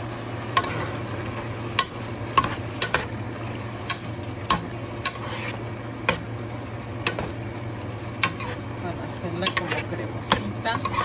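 A spoon stirring shrimp pasta in a creamy sauce in a hot pot, knocking and scraping against the pot's sides in irregular clicks, over a low sizzle and a steady hum.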